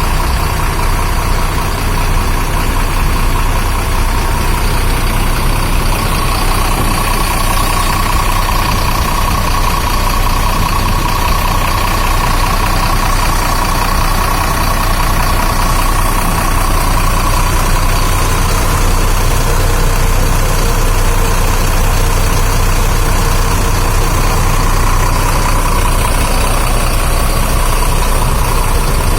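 Bus engine idling steadily through a loud exhaust with a deep, even snoring rumble ('ngorok').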